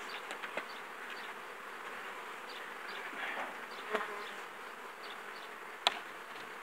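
Honeybees buzzing steadily around open hives, with a few light clicks and one sharp knock near the end as a wooden hive cover is handled.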